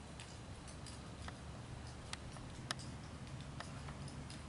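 Faint, steady low rumble of a Boeing 777-300ER's GE90 engines cruising at high altitude, with scattered sharp clicks over it, one louder click a little past halfway.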